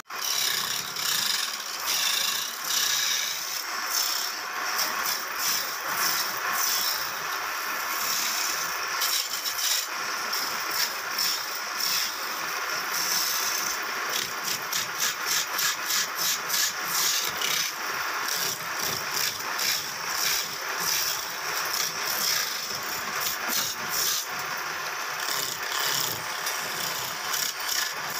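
Hand turning chisel cutting into a spinning wooden bed leg on a lathe: a continuous scraping, rattling chatter of steel on wood, coming in quick uneven strokes as the tool is worked along the blank.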